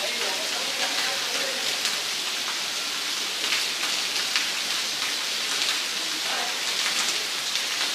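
Heavy rain pouring onto wet brick paving, a steady dense hiss with no let-up.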